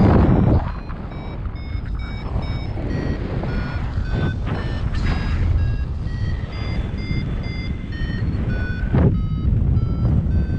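Paragliding variometer beeping: short electronic tones about three a second, their pitch stepping up and down, the sign of the glider climbing in lift. Under it, wind rushing over the microphone, with loud gusts at the start and about nine seconds in.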